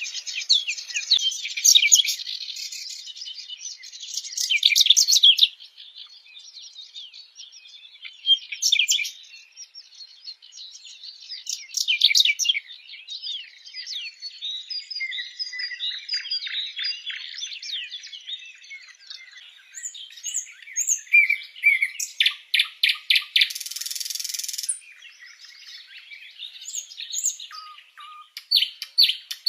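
Several songbirds singing and chirping together, a dense chorus of quick, high notes and trills, with a fast rattling run of notes about two-thirds of the way through.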